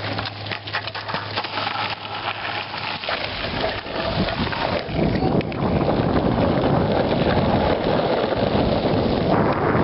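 Longboard wheels rolling over a rough gravel road, a dense crackling rumble that builds about four seconds in and holds loud to the end. In the first seconds, lighter clicking of steps on the gravel.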